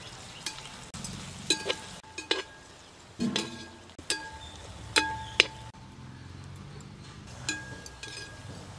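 A perforated metal skimmer stirring and clinking against a large metal pot of sliced onions and whole spices frying in oil, with a steady low sizzle underneath. About eight sharp metal strikes, each ringing briefly, as the onions fry toward golden brown.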